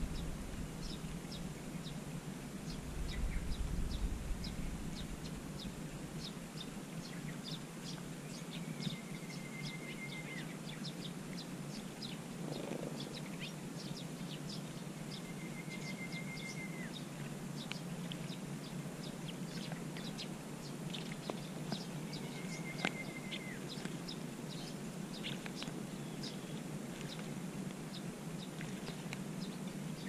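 Eurasian tree sparrows chirping, many short high chirps in quick succession over a steady low background hum. Three times, about 8, 15 and 22 seconds in, a longer even note of about a second ends in a quick drop. A brief low rumble comes about three seconds in.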